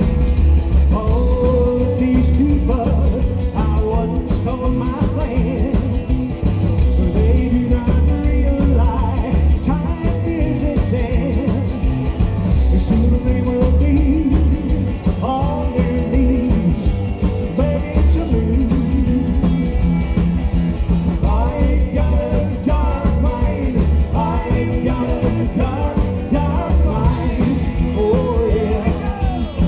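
A rockabilly band playing live: slapped upright double bass, electric guitar and drums, with a man singing.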